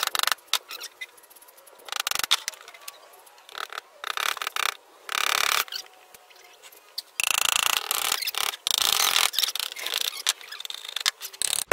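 A claw hammer prying a nail out of a wooden birdhouse panel, with the wood and nail scraping and creaking. There is a run of short scrapes, with two longer ones past the middle.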